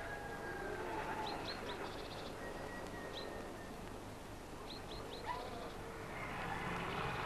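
Small birds chirping in short repeated phrases with buzzy trills, over a steady outdoor background. From about six seconds in, a low engine hum of approaching machinery grows louder.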